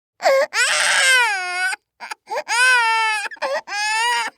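Infant crying: three long, high-pitched wails, each dropping in pitch at its end, broken by short sobs and catches of breath.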